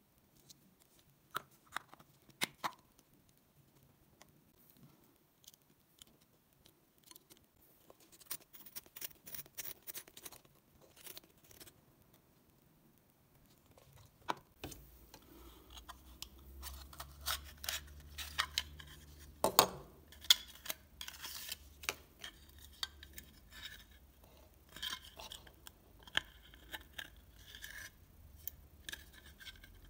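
Small hard-plastic tubs, lids and a clear plastic case handled by hand: scattered clicks, taps and short scrapes of plastic, with one sharp click about twenty seconds in. A low steady hum comes in about halfway through.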